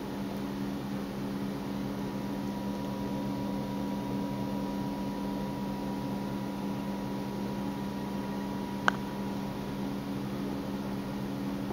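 Steady electrical or mechanical hum made of several fixed tones over a light hiss, with a single sharp click about nine seconds in.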